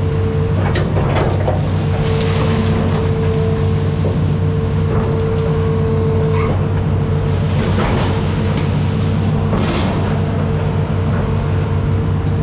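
Diesel engine of a Hitachi ZX210F amphibious excavator running steadily under a constant whine, with a few short creaks and rattles scattered through.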